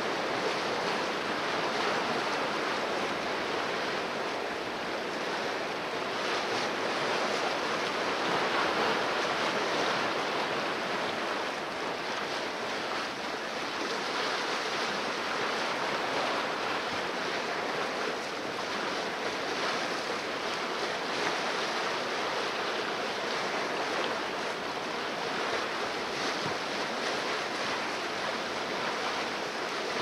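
Sailboat moving under sail through open ocean: a steady rush and hiss of water streaming and splashing along the hull, with wind.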